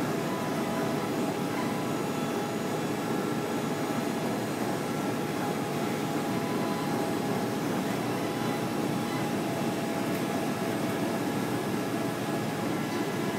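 Offset printing plate processor running with its rollers turning a plate through: a steady mechanical hum with a few faint constant whining tones above it.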